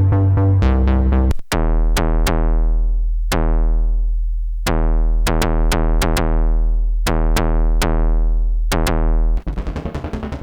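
Dreadbox Typhon analog monophonic synthesizer playing factory presets. A deep, buzzy bass tone is held while its filter repeatedly opens bright and closes again, with sharp clicks between. The sound breaks off and changes to a different patch about a second and a half in, and again to a noisier one near the end.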